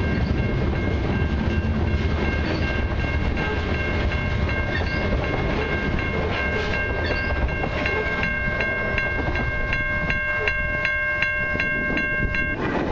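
Freight train's covered hopper cars rolling past a grade crossing, with the crossing bell ringing about twice a second over the wheel noise. The last car clears and the bell stops near the end.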